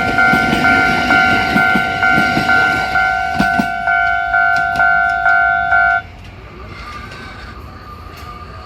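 Japanese level-crossing warning bell ringing about twice a second over the rumble and wheel clicks of a passing electric train. The bell cuts off abruptly about six seconds in, leaving the quieter sound of the train running on.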